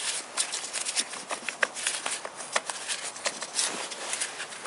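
Ignition coils being worked out of their plug wells on a Toyota VVT-i engine by gloved hands: a quick, irregular run of plastic clicks, knocks and scrapes, with glove rustle.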